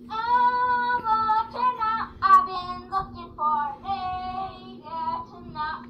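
A boy singing, holding and sliding between notes, played back through a tablet's small speaker, with a faint steady hum underneath.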